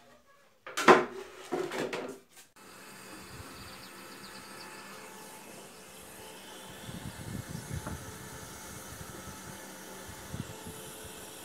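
Wooden folding chair being handled and folded, its slats and legs clattering and knocking for about two seconds near the start. After that, a steady hiss with a few soft low bumps.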